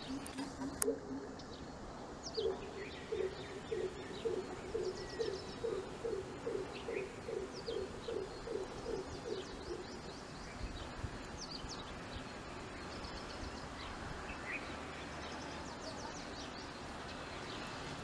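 Greater coucal (crow pheasant) calling: a long series of deep, evenly spaced hooting notes, about two or three a second, running from about two seconds in to about ten seconds in. A lower series of the same notes fades out about a second in. Small birds chirp faintly throughout, and there is one sharp click about a second in.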